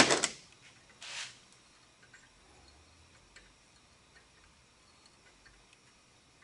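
Tap cutting threads into the end of a hex steel throttle-linkage rod held in a vise: a loud short burst of cutting noise at the start and a second, thinner one about a second in, then only faint ticks as the tap is worked further in.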